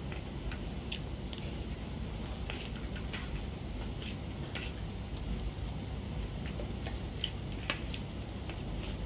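A plastic spoon scraping and clicking against a disposable plate while scooping up food: faint, scattered clicks every second or so over a steady low hum.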